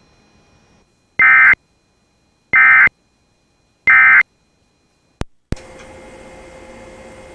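Emergency Alert System end-of-message tones: three short bursts of SAME digital data, each about a third of a second long and a little over a second apart. Two sharp clicks follow, then a steady hiss with a faint hum.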